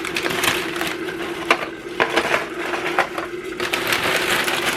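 Seasoned ground beef sizzling and crackling in a Presto electric kettle as its broth cooks down, a dense irregular crackle over a steady hum, with a couple of sharper clicks near the middle.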